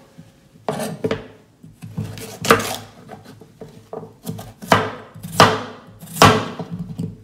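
Chef's knife slicing raw potatoes and sweet potato on a cutting board. Each cut ends in a sharp knock of the blade against the board: about eight cuts at an uneven pace.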